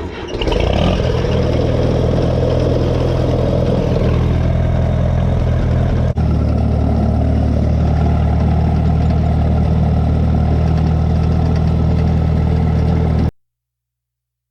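Tractor engine coming in suddenly and running hard for the first few seconds, then settling into a steady run. It cuts off abruptly near the end.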